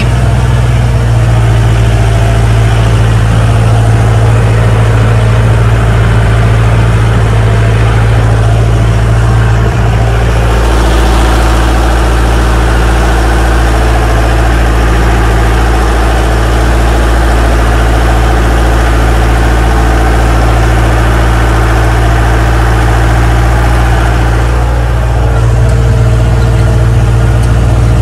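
Jeep engine running steadily as it drives along a narrow lane, a continuous low drone heard from on board. The engine note shifts about ten seconds in and again near the end.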